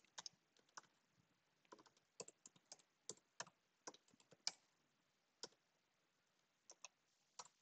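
Faint, irregular key clicks of typing on a computer keyboard, with a pause of about a second past the middle.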